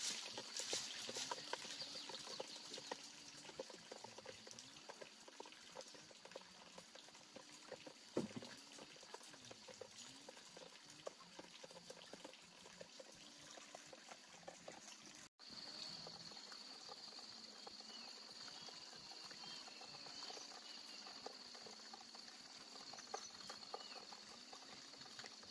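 Faint countryside ambience: a steady high-pitched insect drone that grows louder about two-thirds of the way through, with faint repeated animal calls and a few light knocks.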